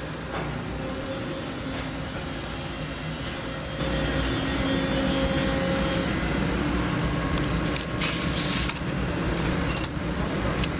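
Steady hum of shop machinery with a few faint held tones, getting louder about four seconds in. Near the end, a short rasp as tape is peeled off laser-cut aluminum hinges, followed by a few sharp clicks.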